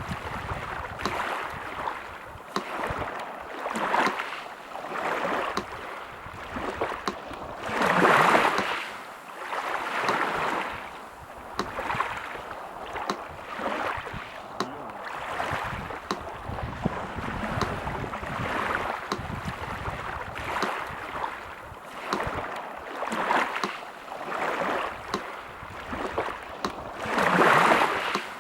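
Sea surf washing in and out in repeated swells, with two bigger waves breaking about a third of the way in and just before the end. A metronome ticks evenly over it.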